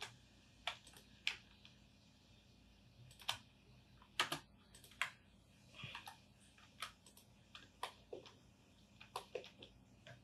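Computer keyboard and mouse clicking: the Shift key and mouse buttons pressed in faint, irregular taps, about twenty in all, with pauses between.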